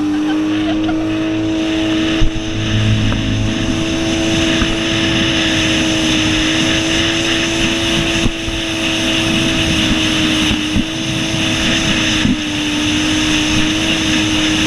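Polaris jet ski's engine running at a steady high cruising pitch, over a steady rush of wind and water noise.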